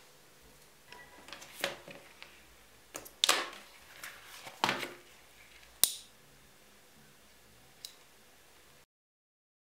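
Close-up handling noises of leather and thread: a few sharp clicks and scrapes, the loudest about three seconds in and again near six seconds. The sound cuts off to silence near the end.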